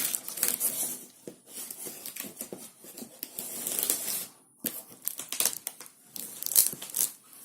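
Packaging being handled and torn open: irregular crinkling, rustling and tearing, with a short pause about four and a half seconds in.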